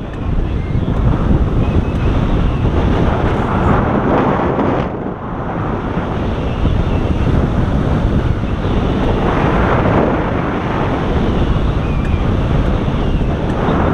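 Loud, steady rush of wind buffeting the microphone of a camera on a hang glider's boom in flight.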